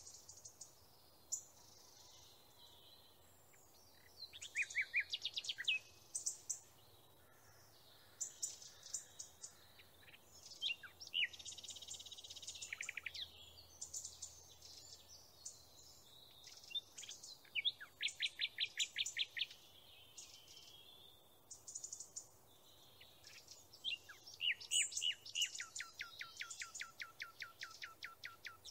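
A small songbird singing: a run of varied high chirps and rapid trills of evenly repeated notes, with a long trill near the end.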